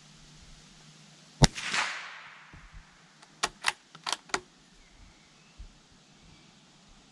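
A Sako Quad bolt-action .22 LR rifle fires a single shot with a short reverberant tail. About two seconds later the bolt is worked in a quick run of four or five metallic clicks, ejecting the spent case.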